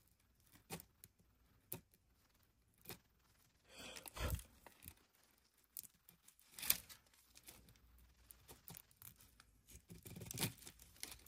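Flat razor blade scraping and picking at a thin-layered sedimentary rock slab, prising off flakes around a fossil fish: scattered faint scratches and small clicks, with a few louder scrapes, the loudest about halfway through.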